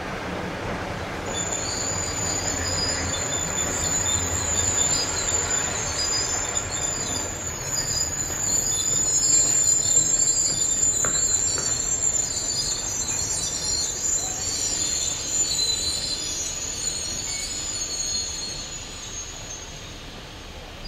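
Steel train wheels squealing against the rails as rolling stock moves slowly through the station: a steady high-pitched squeal with a wavering lower squeal under it, starting about a second in and fading out near the end, over a low rolling rumble.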